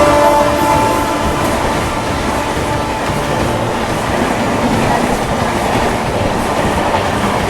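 Passenger express coaches rushing past at about 120 km/h: a steady roar of wheels and wind, with wheels clattering over the rails. The tail of the locomotive horn fades out in the first half second.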